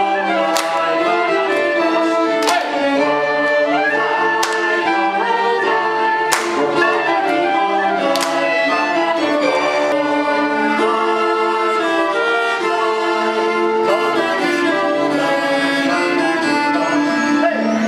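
Orchestral music led by bowed strings, with sustained notes and a sharp struck accent about every two seconds in the first half.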